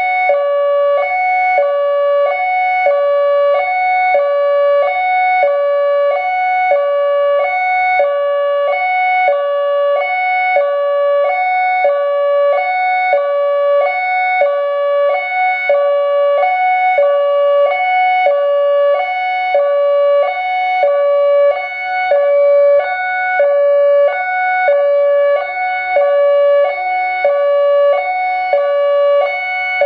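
ACA Alertronic AL-4000 electronic warning siren sounding its hi-lo tone, switching between a higher and a lower note about every half second, steady and loud.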